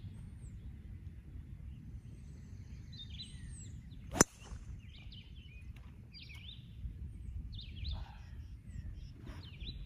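A golf driver striking a teed-up ball: one sharp crack about four seconds in. Birds chirp here and there over a low, steady outdoor rumble.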